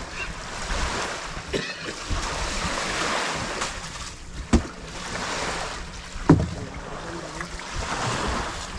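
Seaside ambience: waves washing and wind buffeting the microphone, with two sharp knocks about four and a half and six seconds in.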